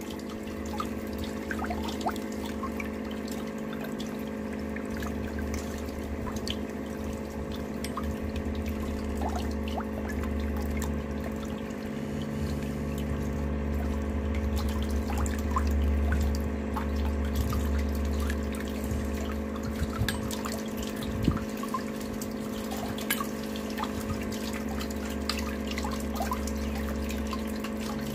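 Water trickling and dripping from small stainless-steel toy vessels, a miniature tap dispenser and bucket, as they are dipped into and lifted out of swirling water, with scattered small drips and clinks. A steady low mechanical hum runs underneath.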